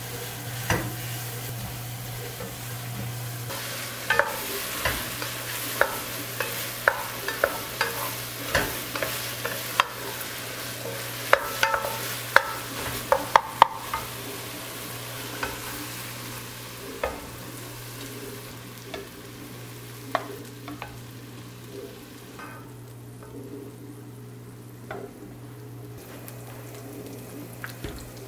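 Crumbled hot sausage sizzling in a ceramic-coated pot while a wooden spoon stirs and breaks it up. The spoon knocks and scrapes against the pot, most busily in the first half. The sizzle dies down in the last third.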